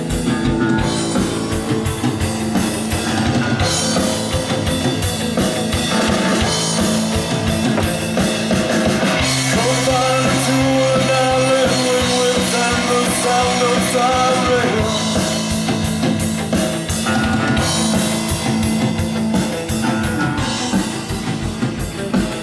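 Post-punk rock song playing: a drum kit keeps a steady beat under guitars in a passage without sung words. About halfway through, a long high note is held for several seconds.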